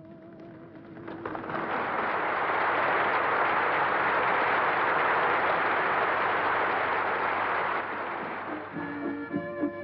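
A large crowd applauding, swelling quickly as a held musical note dies away about a second in, then holding steady for several seconds. Near the end the applause gives way to rhythmic folk music with accordion.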